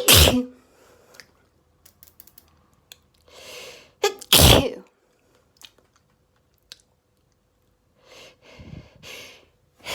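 Person sneezing in an allergy sneezing fit: one sneeze right at the start and another about four seconds in, each preceded by a breathy intake of air, with the next sneeze starting at the very end.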